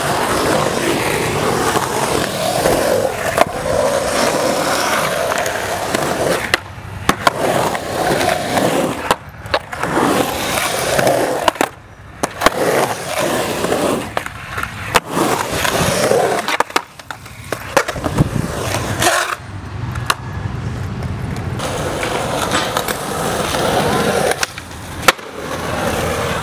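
Skateboard wheels rolling and carving on a concrete bowl, with repeated sharp clacks of the board hitting the concrete.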